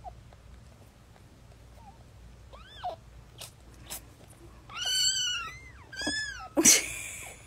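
Newborn kittens squealing as the mother cat moves on top of them: short, high, arching cries, faint at first and louder a few seconds in, with the loudest around two thirds of the way through. A short noisy burst follows near the end.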